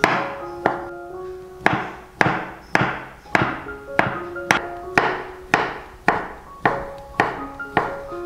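Chef's knife chopping sausage on a wooden cutting board: sharp, even chops about twice a second. Light background music with short held notes plays between the strokes.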